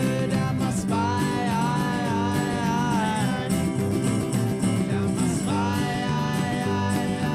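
Live blues-rock band music in an instrumental passage. A lead line plays two phrases of held, bending notes over a steady bass and drum backing.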